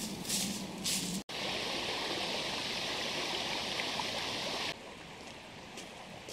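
Footsteps crunching through dry fallen leaves, then a sudden switch to the steady rush of a shallow river running over a stony riffle. About three-quarters of the way through, the rush drops suddenly to a softer flow of water.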